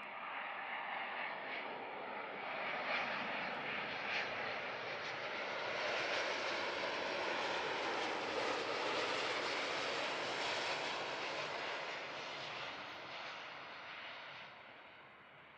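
Airbus A330-900neo airliner's Rolls-Royce Trent 7000 turbofans passing low on final approach to landing: a broad jet rush that swells to its loudest in the middle and fades away over the last few seconds.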